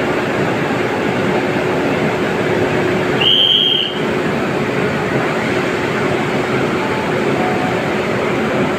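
WAP-7 electric locomotive running at standstill: a steady whirring noise with a constant hum underneath. About three seconds in, a short high-pitched whistle sounds for under a second.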